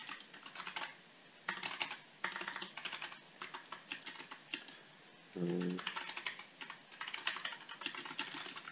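Typing on a computer keyboard: quick runs of key clicks with short pauses between them. A brief low hum sounds about halfway through.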